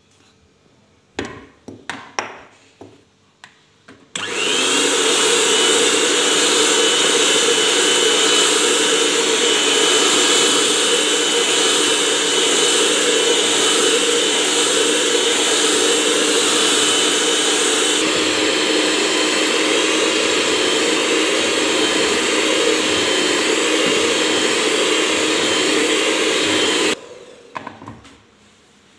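A few short knocks, then an electric hand mixer switches on about four seconds in and runs steadily with a high whine, its twin beaters whisking cake batter in a bowl. It stops abruptly near the end.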